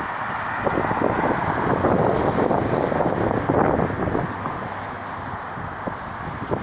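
Street traffic noise: a passing vehicle swells over the first few seconds and fades, with wind on the microphone.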